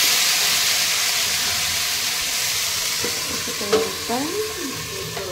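Thin-cut potatoes frying in hot oil in a kadhai: a steady sizzle as a metal spatula stirs them, tapering off in the second half, with a sharp knock about three and a half seconds in.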